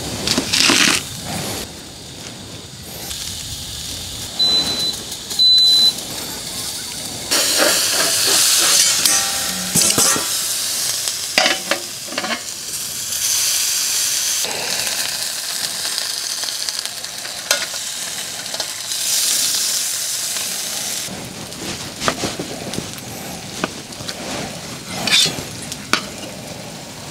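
Pork belly, sausages and garlic sizzling in a stainless stovetop smoker tray, in several hissing stretches through the middle. Sharp knife strokes on a wooden cutting board come at the start, through napa cabbage, and again near the end, through the smoked pork.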